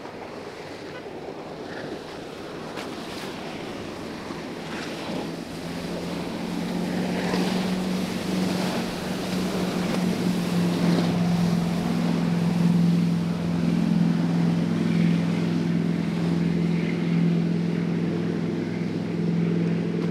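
Flybridge sportfishing boat's engines droning at speed, growing louder through the middle of the clip as it comes closer. The rush of its wake and the waves runs underneath, with wind buffeting the microphone.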